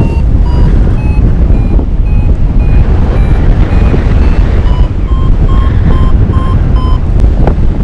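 Paragliding variometer beeping, about three short beeps a second that shift in pitch, the vario's signal that the glider is climbing in rising air. Heavy wind rushing across the microphone runs under it.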